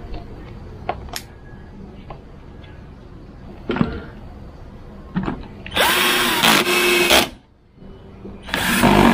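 Ingco cordless drill run twice against the plastic front bumper while the aftermarket DRL lamp is mounted in the fog-light opening. The first run lasts about a second and a half, spinning up and holding a steady whine. A shorter run comes near the end. Before them come a few sharp clicks of the plastic lamp housing being handled.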